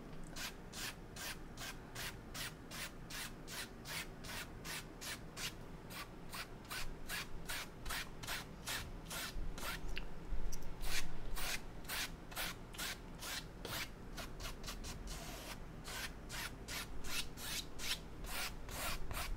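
Paintbrush stroking back and forth across a wet oil-painted canvas in quick, even strokes, about three a second, a little louder around ten seconds in.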